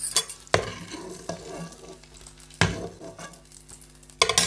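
Metal spoon knocking and scraping against a nonstick frying pan and a steel bowl as fried boiled eggs are lifted out of hot mustard oil, over a faint sizzle of the oil. The knocks come a few times, spaced irregularly, with the loudest cluster near the end.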